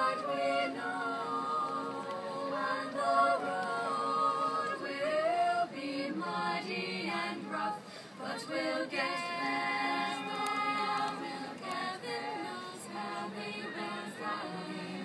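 A small women's choir singing a cappella, several voices holding notes together in harmony.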